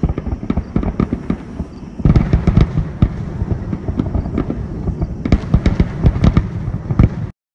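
Aerial fireworks going off in quick succession, a dense run of bangs and crackles with heavier booms from about two seconds in, cutting off suddenly near the end.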